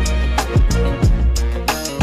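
Background music with a steady beat: drums and deep bass.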